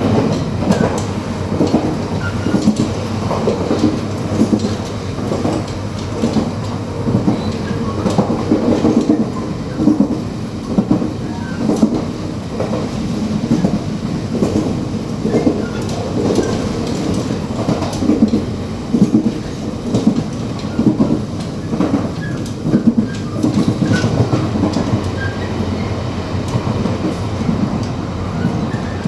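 Running noise in the gangway between two carriages of a Taiwan Railways diesel multiple-unit Tze-Chiang express: a steady, loud rumble broken by irregular knocks and clunks every half second to a second, with a few short, faint squeaks.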